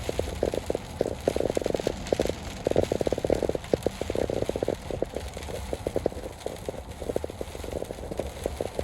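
Heavy rain pattering in dense, irregular bursts over a low, steady rumble.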